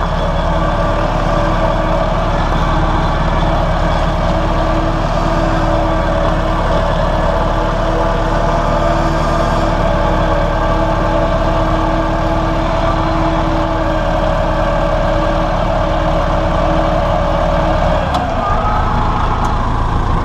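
Massey Ferguson 168 tractor's four-cylinder diesel running at a steady speed, driving the tanker's PTO-driven Battioni Pagani Garda 75 pump while it sprays irrigation water. The engine note changes about two seconds before the end.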